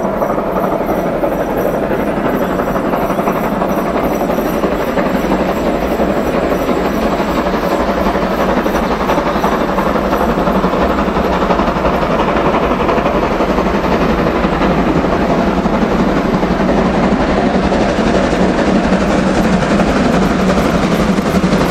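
Steam locomotive 50 3648, a German class 50 2-10-0, approaching under power with a passenger train: the chuffing of its exhaust grows louder as it draws near.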